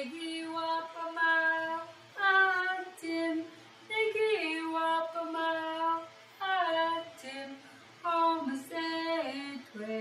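A woman singing alone, without accompaniment: a simple, slow song in short phrases of held notes that step up and down in pitch, with brief breaths between phrases.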